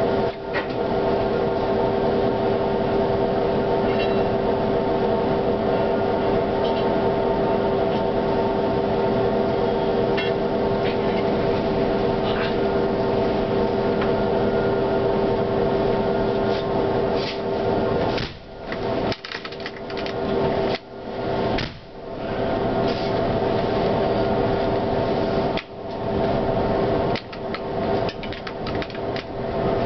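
Steady electrical hum of several held tones inside a tram's cab. In the later part it drops out briefly several times.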